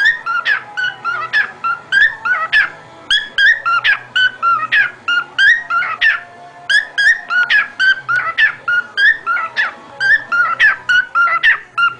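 Cockatiel chirping and whistling without pause: a rapid run of short, sharp, sweeping calls, several a second.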